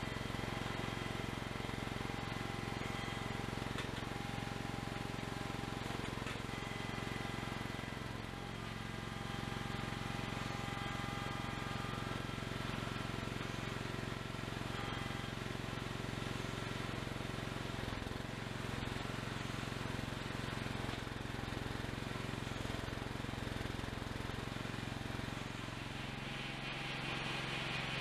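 The small gasoline engine of a garden-tractor-based forklift running steadily under the operator, its note dipping briefly about eight seconds in.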